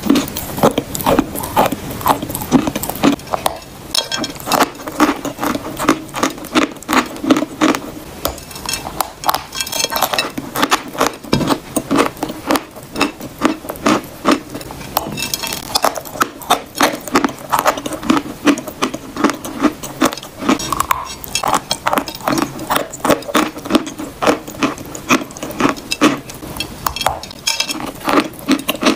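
Close-miked chewing of hard eating chalk: crisp crunches and crackles of the chalk breaking between the teeth, a few a second, with crumbling in between.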